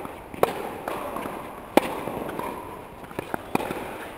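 Tennis balls being struck by rackets and bouncing during a doubles rally: a series of sharp pops, the loudest just under two seconds in and a quick cluster of three a little past three seconds.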